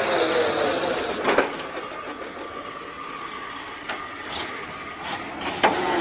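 Heavy truck engine running, its pitch falling over the first second, then quieter with a few sharp knocks, the loudest near the start and near the end.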